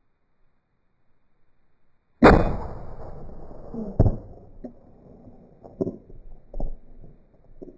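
A shotgun shot at a flying clay about two seconds in, played back slowed down so it booms deep and dies away over a couple of seconds. A second, slightly quieter sharp report comes about two seconds later, followed by a few fainter knocks.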